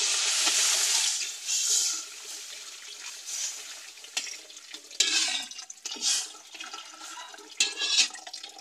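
Water poured into a metal wok of sautéed corn, splashing and gushing. It is loudest for the first second or so, then runs on more softly. A few sharp knocks of a metal spoon against the wok come in the second half.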